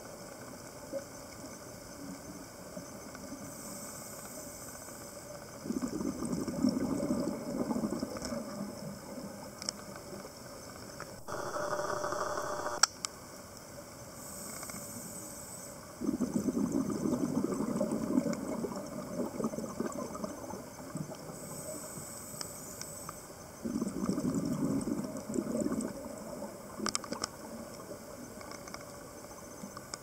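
A scuba diver's regulator breathing, heard underwater: a thin hiss on each inhalation, then a rush of exhaled bubbles, three breaths in all. A brief muffled noise comes about eleven seconds in.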